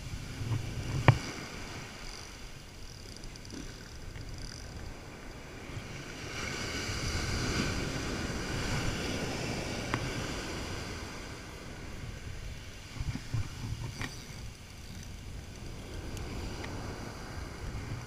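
Ocean surf washing up the sand, swelling louder in the middle, with wind rumbling on the microphone. A few sharp clicks, the loudest about a second in.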